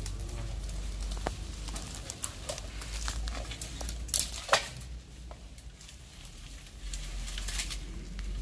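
Dry bamboo leaves and twigs rustling and crackling as a person moves and works crouched in a bamboo thicket, with scattered small clicks and a couple of louder sharp clicks around four seconds in.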